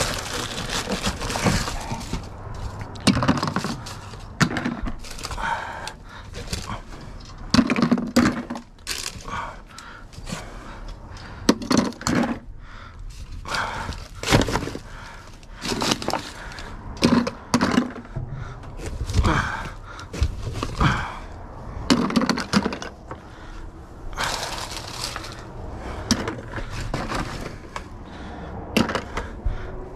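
Rummaging through junk in a dumpster: irregular clattering, knocks, cracks and scrapes as debris is shoved and lifted, with some heavier thuds.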